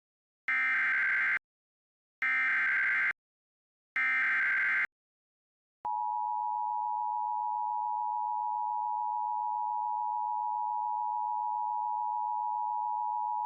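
Emergency Alert System alert opening: three one-second bursts of warbling digital data tones (the SAME header, here encoding a severe thunderstorm warning), then about a second later the two-tone attention signal, a steady pair of tones sounding together for about eight seconds.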